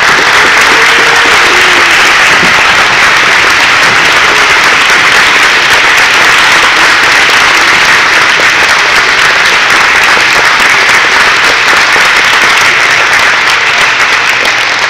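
Loud, steady applause from an audience, easing slightly near the end.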